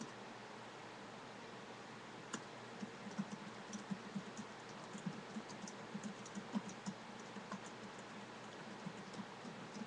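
Typing on a computer keyboard: a single click about two seconds in, then a quick run of keystrokes for several seconds, a short pause, and more keystrokes near the end, over a steady hiss.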